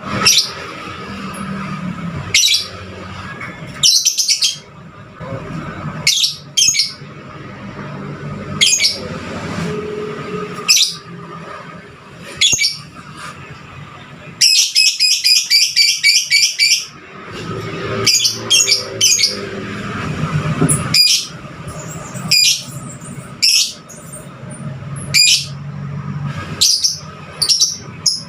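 Fighter-type lovebird calling with sharp, high chirps every second or two, including a fast run of about ten rapid chirps midway, over a low steady background hum.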